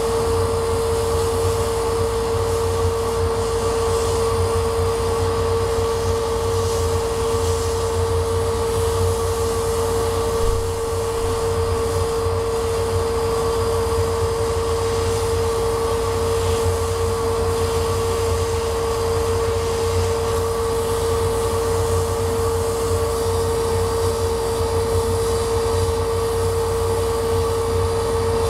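Laser cutter running while it engraves a wooden sheet: a steady machine drone with a constant mid-pitched whine and a low hum underneath.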